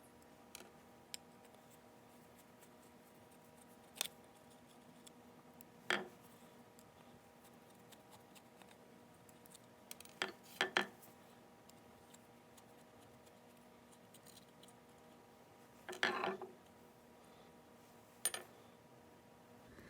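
Scattered light metallic clinks and taps of small generator parts and hand tools being handled during disassembly of a Delco Remy car generator, a few at a time with pauses between, over a faint steady hum.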